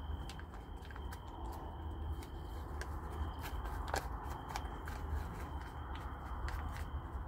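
Tabby kitten eating from a plastic food pouch held in a hand: scattered crinkles of the pouch and small clicks of chewing and licking, with a faint steady high tone underneath.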